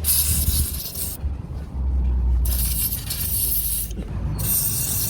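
Three bursts of aerosol spray, each about a second long: cleaner sprayed on a sensor connector whose pins are corroded. A steady low rumble runs underneath.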